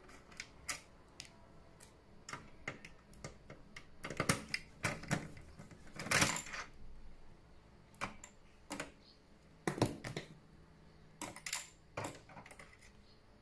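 Screwdriver clicking and tapping as Torx T8 screws are worked out of a PlayStation 4 Pro's case, with small metal screws clinking. The clicks come irregularly, a few louder than the rest.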